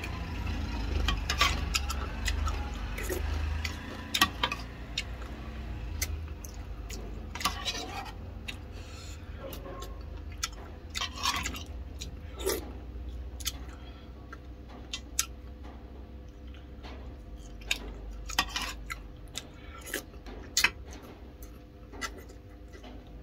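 Metal spoon clinking and scraping against a ceramic bowl, with close-up chewing and eating sounds, over a low steady hum.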